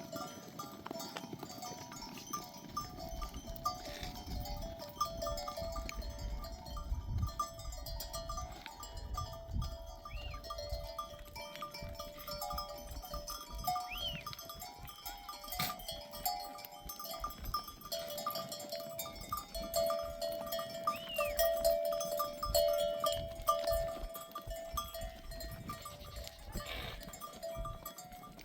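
Bells on a grazing flock of sheep and goats clinking and ringing continuously, with a few short bleats.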